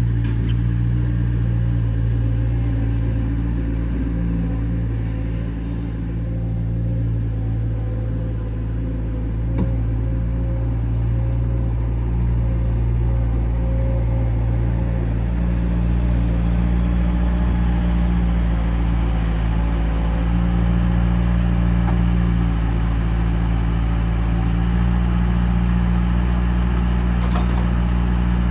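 An engine running steadily under light load, dipping slightly in level around five to nine seconds in and then holding steady again.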